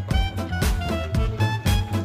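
Background music: an upbeat instrumental track with a steady beat.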